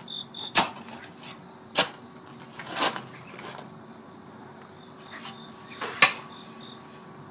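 Crickets chirping steadily at night, with four sharp impacts about a second apart at first, then one near the end; the third impact is longer and scraping.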